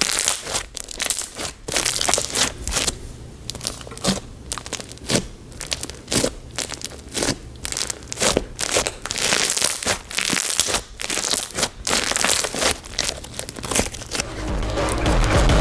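Crunchy white glue slime packed with silica and mini blockbeads being squished and pressed by hand, giving quick irregular crackles and sticky pops with short pauses between squeezes. Music comes in near the end.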